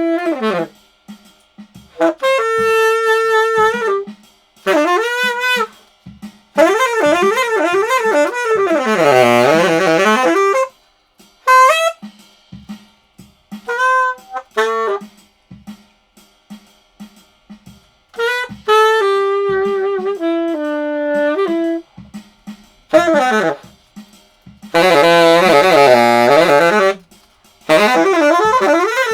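Unaccompanied saxophone played in short phrases separated by pauses. Twice, a longer phrase sweeps down in pitch and back up. It is played unamplified in a bare garage.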